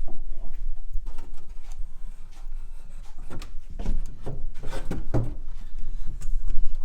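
Wooden hanging pegs of a pine wardrobe being slotted down into their supports: a series of wooden knocks and rubbing scrapes, busiest in the second half.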